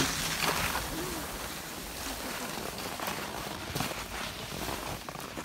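Skis sliding and scraping over snow, a steady hiss that is loudest in about the first second.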